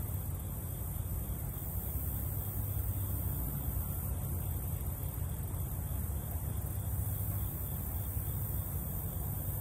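Steady outdoor ambience: a constant low rumble with an even, high hiss above it, unchanging throughout.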